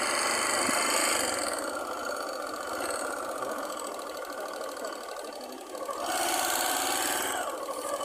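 Small motorcycle engine running as it rides slowly over a sandy track. It eases off for a stretch past the middle and picks up again about six seconds in.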